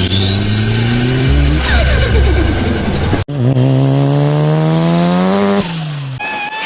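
Car engines accelerating hard in short spliced clips. The engine pitch climbs steadily in two long pulls, each ended by an abrupt cut.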